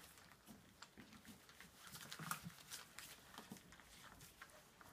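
Faint, irregular clicks and smacks of a litter of young cocker spaniel puppies eating together from a shared feeding dish, busiest a little after two seconds in.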